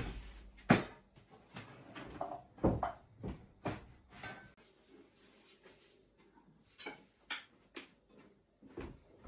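Dishes and forks being handled at a table: a scatter of short knocks and clinks, a dozen or so spread unevenly.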